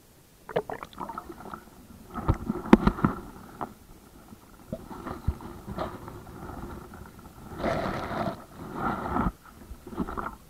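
Muffled knocks, clicks and gurgling of water around a camera held underwater in a river, strongest in the first few seconds, followed by two longer bursts of noise near the end.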